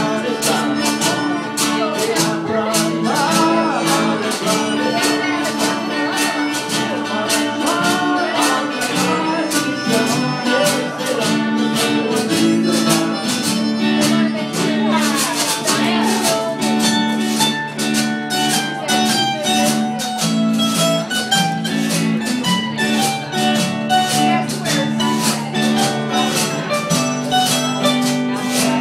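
Live acoustic string-band music: a mandolin picked over a strummed acoustic guitar in a steady, even rhythm.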